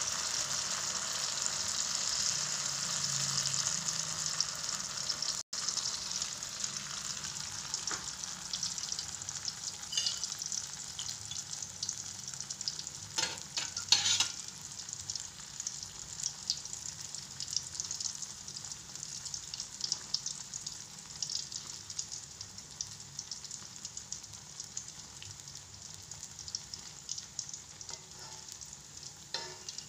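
Peyek batter deep-frying in hot oil in a wok, a steady sizzling crackle that is strongest for the first few seconds after the batter goes in and then settles lower. A couple of sharp knocks of a utensil against the pan come about 13 to 14 seconds in.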